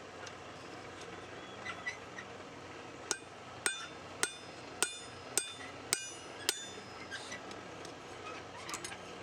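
Hand hammer striking steel on an anvil while a knife is forged: seven ringing blows about half a second apart, beginning about three seconds in.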